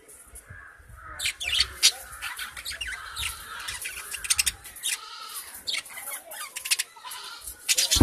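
Budgerigar chirping and chattering in short, wavering calls, mixed with many sharp, scratchy clicks.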